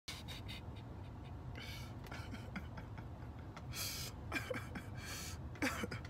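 A man's quiet, breathy laughter: a few airy exhalations and short chuckles, more of them toward the end, over a low steady rumble.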